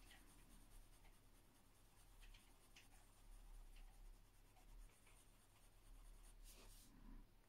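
Faint, soft scratching of a coloured pencil being worked over paper in small strokes, blending a light purple layer, with a low steady hum underneath.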